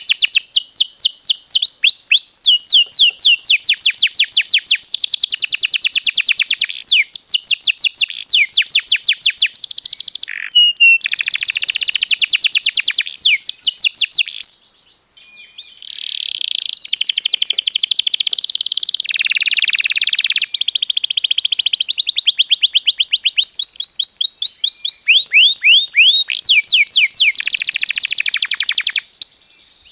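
Domestic canary singing: long runs of fast, high trills and repeated sweeping notes, broken by a short pause about halfway through.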